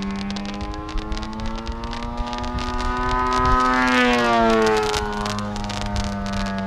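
Engine of an Extra 330 SC aerobatic model plane flying a pass: its pitch climbs as it approaches and slides down as it goes by, loudest about four seconds in.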